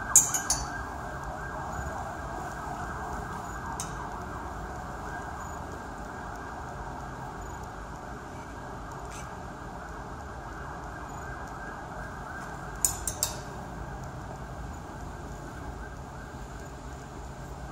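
Two short clusters of sharp clicks, about thirteen seconds apart, such as clothes hangers knocking on a metal rail, over a steady wavering drone.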